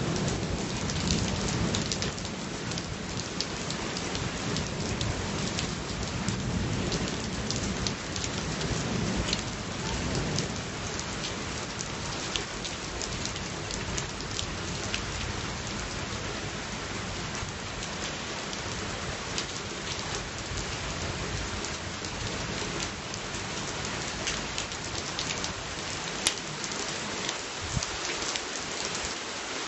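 Steady rain falling in a thunderstorm, with many sharp drop hits close to the microphone. A low rumble of thunder dies away over the first ten seconds or so.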